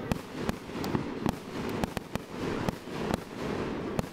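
Fireworks display: aerial shells bursting as an irregular string of sharp bangs and cracks, about two or three a second, over a constant background din.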